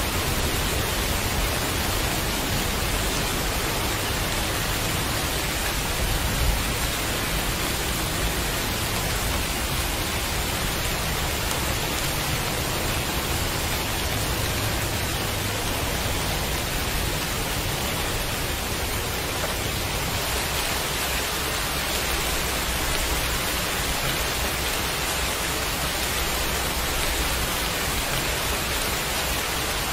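Heavy rain falling steadily: an even, unbroken hiss with no separate drops or thunder standing out.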